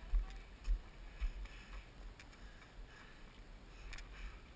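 Muffled footfall thumps, about two a second, jolting a body-worn action camera's microphone while running downhill on a dirt and grass trail, with low wind rumble and a few faint breaths.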